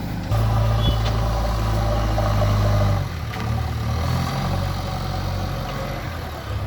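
JCB 3DX backhoe loader's diesel engine running; it revs up sharply about a third of a second in, holds at the higher speed for nearly three seconds, then drops back to a lower, uneven speed.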